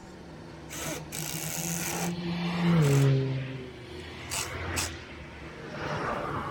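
A motor running with a steady hum that drops in pitch and gets louder about three seconds in, as if under load. Short bursts of scraping noise come before and after.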